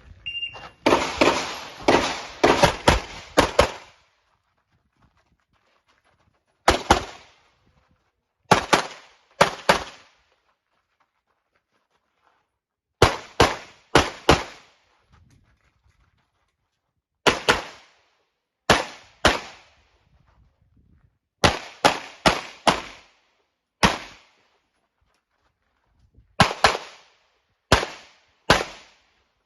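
A short electronic shot-timer beep, then a Glock pistol firing a fast string of about ten shots. After that come pairs and small groups of shots separated by pauses of one to three seconds.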